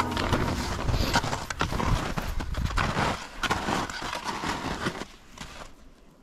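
Short forest skis (sliding snowshoes) and ski poles crunching and scraping through snow in uneven strides. The strides die down about five seconds in.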